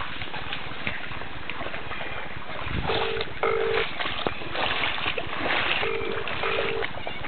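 Steady rush of floodwater flowing across the ground, with wind on the microphone, growing louder about three seconds in. Two pairs of short beeps cut through, one about three seconds in and one near the end.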